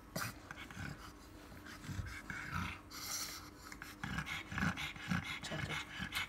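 A pug panting in short, regular breaths, about two a second, while in labour with her first litter.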